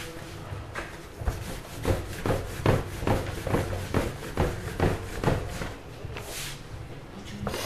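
Rhythmic knocking on a wooden work surface, about two or three knocks a second, with some rubbing; the knocks stop about five seconds in.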